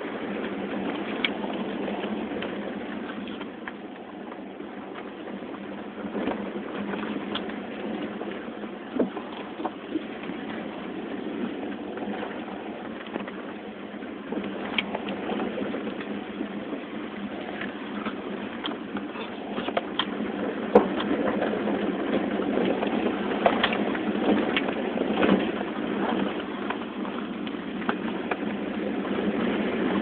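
Cab noise inside a 2005 Toyota 4Runner crawling along a rutted dirt trail: a steady engine and tyre rumble with scattered knocks and rattles as it rolls over ruts and rocks, getting louder and busier about two-thirds of the way in.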